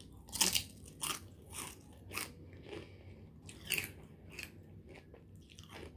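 A pita chip dipped in hummus being bitten and chewed: a run of irregular crisp crunches, loudest in the first second and again near four seconds in.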